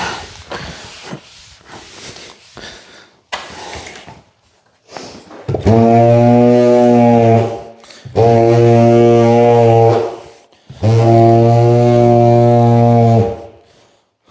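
Handheld tile vibrator buzzing in three loud, steady bursts of about two seconds each, settling a large-format tile into its mortar. A few light knocks and scrapes come before it.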